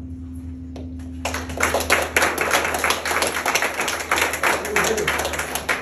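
Room full of people clapping in applause, beginning about a second in and continuing as a dense, irregular clatter of many hands.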